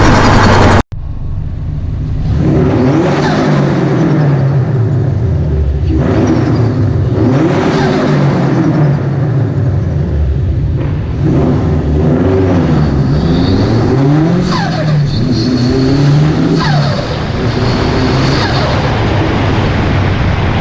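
Subaru WRX STI's turbocharged EJ25 flat-four revving again and again, its pitch climbing and falling, with turbo flutter and falling whistles from the billet VF48 turbo and Forge blow-off valve each time the throttle closes.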